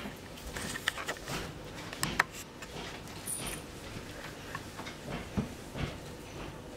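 Handling noise from a rubber exercise band being looped around a child's feet and someone shifting on a bed: scattered soft rustles and light clicks, the sharpest about two seconds in, and a couple of dull thumps near the end.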